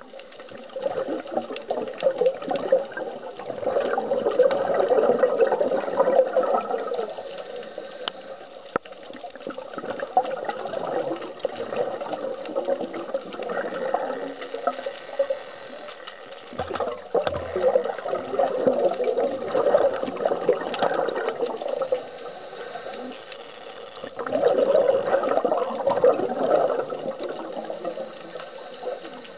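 Scuba diver's exhaled bubbles from the regulator gurgling in bursts of a few seconds, recurring every few seconds with quieter breaths between, heard through an underwater camera housing.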